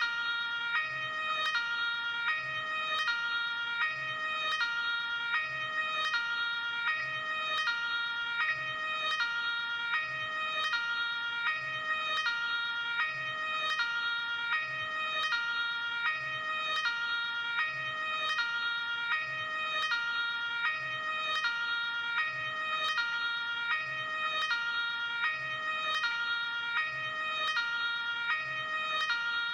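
Luxembourg ambulance two-tone hi-lo siren, alternating steadily between a high and a low note, each held a little under a second.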